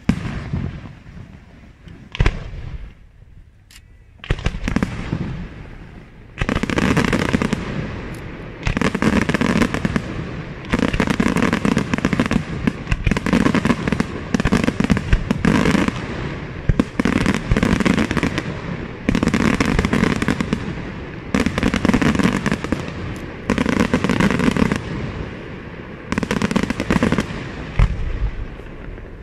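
Aerial firework shells bursting in a pyrotechnic display. A few single bangs come in the first seconds, then from about six seconds in a dense, rapid barrage of reports follows in clusters about a second long.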